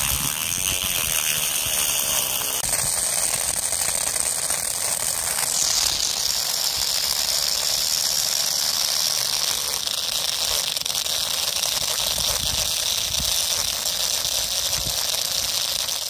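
Small DC motor spinning a plastic auger as it bores into sand: a steady high whine over a gritty, ratchety rattle. The whine shifts in pitch about three seconds in and again near six seconds.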